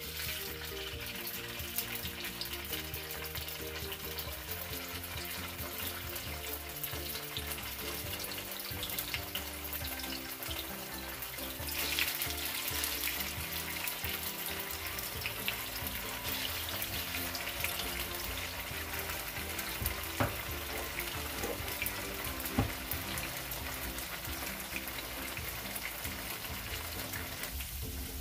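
Tofu blocks sizzling as they fry in hot oil in a nonstick frying pan, a steady crackling hiss that swells about twelve seconds in. A few sharp clicks come later on, with background music underneath.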